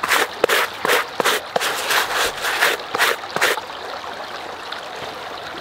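Hand scrubbing and rubbing wet denim jeans, quick rustling strokes at about four a second that stop about three and a half seconds in. A creek runs steadily underneath.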